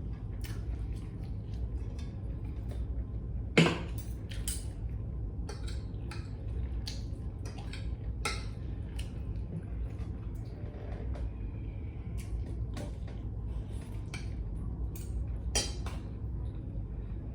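Scattered clinks and taps of dishes and utensils during a meal. The sharpest comes about three and a half seconds in and another near the end, over a steady low hum.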